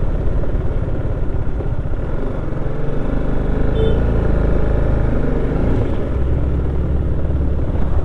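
Sport motorcycle's engine running steadily while riding, heard from on the bike along with a rushing noise.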